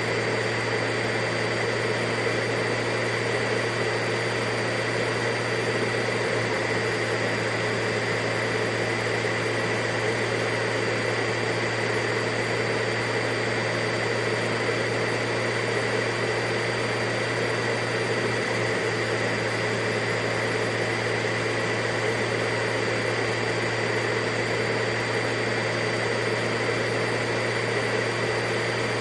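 Vacuum cleaner running steadily: an unbroken motor whine and rushing air with a steady hum beneath.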